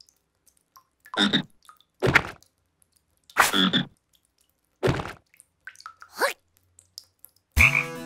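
Cartoon frog croaking: about five separate croaks roughly a second apart, the last one sliding down in pitch. A musical chord with a deep bass comes in just before the end.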